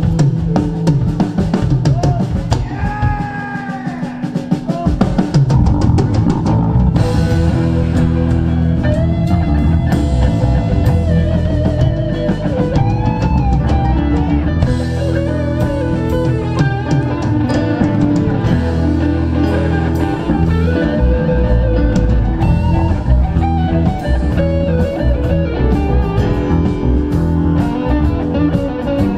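Live rock band playing an instrumental jam: electric guitar lines over bass guitar and a drum kit.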